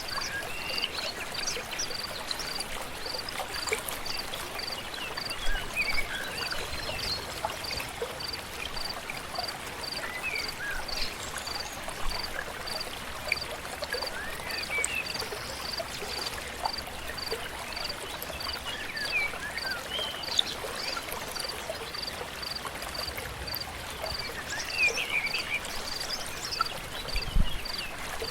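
Forest stream flowing steadily, with scattered short bird chirps over it and a high, even chirp repeating about twice a second.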